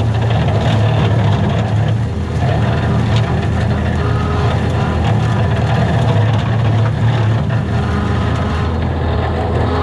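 Kubota SVL75-2 compact track loader's diesel engine running steadily under load as the machine pushes through brush, with a few short cracks of stems and branches breaking.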